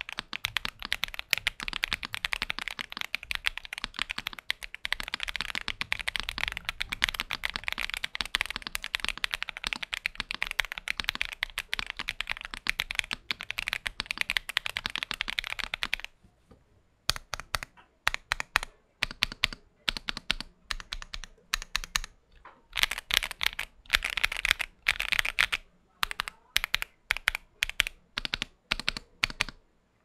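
Mechanical keyboard typing: an Akko ACR Pro 75 V2 with Akko Cream Blue switches, PBT keycaps, an aluminium plate and polyfill in the case. Fast continuous typing for about sixteen seconds, then slower separate keystrokes and short runs with pauses between them.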